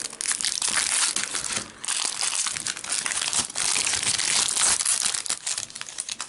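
Foil trading-card packet being torn open and its wrapper crinkled and crumpled by hand: dense, continuous crackling with a brief pause about two seconds in.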